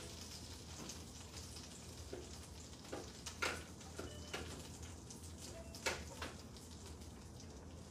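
Food sizzling faintly in a hot pan on the stove, with a few sharp clicks and taps from handling in the second half.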